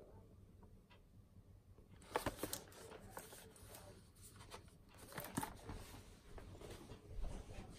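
Faint handling noise, starting about two seconds in: irregular rustles and small knocks as a cardboard product box is moved about and set down on a leather sofa cushion.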